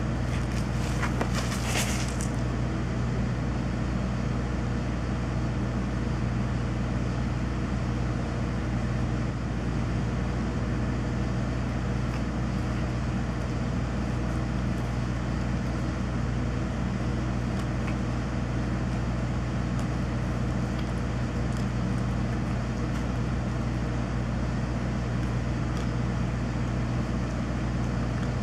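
Electrical transformer giving off a loud, steady, deep hum with a layer of noise over it.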